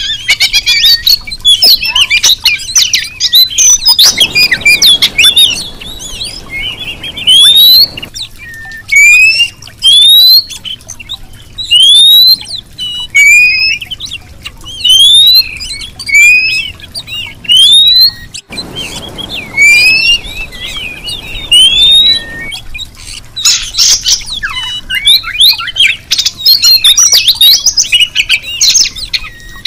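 Female oriental magpie-robin (kacer) calling, a call that stirs males to sing. A string of clear rising whistles, about one a second, through the middle, between stretches of fast, busy chattering.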